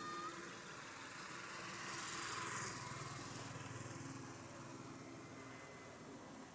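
Jet engines of an Airbus A320-family airliner on its landing approach passing overhead: a rushing noise with a low hum beneath it, swelling to its loudest about two and a half seconds in and then easing off.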